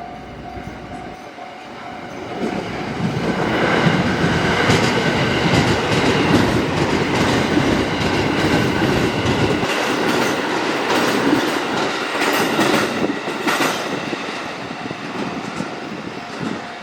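A JR West 281 series electric train running by, its wheels clattering on the rails. The sound builds over the first few seconds, stays loud for about ten seconds, then fades away.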